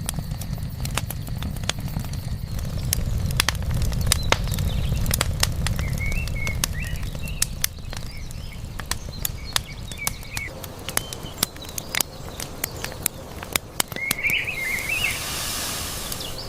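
Knife strikes on a cutting board: many sharp, irregular taps and clicks. Small birds chirp from about six seconds in, under a low rumble that fades by the middle, and a brief hissing rush comes near the end.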